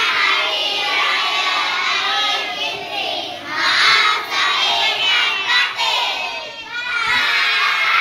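A class of young children shouting and cheering together, many high voices at once, coming in several loud surges.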